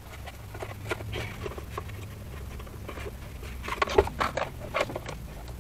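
Hands fitting a dust boot onto an Eberspächer diesel air heater's housing: scattered light clicks, taps and rustles, busiest about four seconds in, over a steady low hum.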